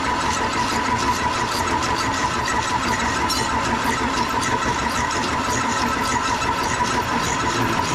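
Vertical milling machine with a shell cutter milling a pistol frame held in the vise: a steady cutting rasp with a constant high whine, unbroken throughout.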